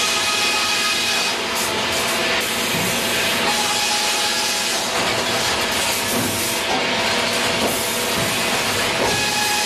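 Grey Series 2000 reversing belt sawbench running, its saw cutting a log fed along the bench: a loud, steady hiss of sawing and machinery, with a faint whine near the start and again near the end.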